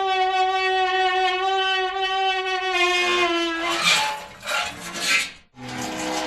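Metal rubbing on metal: a sustained pitched screech for about three and a half seconds, dipping slightly in pitch before it ends. Then come rough scraping strokes, a brief break, and a fresh squealing scrape near the end.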